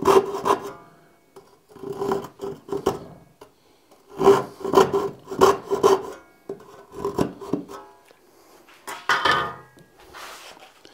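Hand chisel paring and scraping wood in short groups of strokes with pauses between, cutting a recess so a forged hinge strap sits flush.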